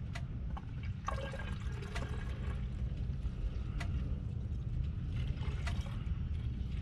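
Coolant pouring and trickling from a plastic bottle into an engine's coolant reservoir, a steady pour that tops up the tank while air is bled from the cooling system. A steady low hum runs underneath.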